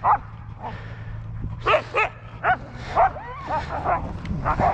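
A stopped team of sled huskies barking and yipping, with about eight short, sharp calls while the team is held on the sled brake.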